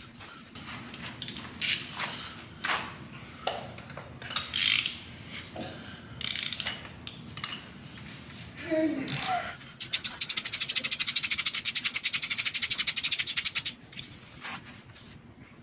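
Tools and parts clink and knock at scattered moments. About ten seconds in, a ratchet wrench clicks rapidly and evenly for about four seconds as a spark plug is turned in its socket, then stops suddenly.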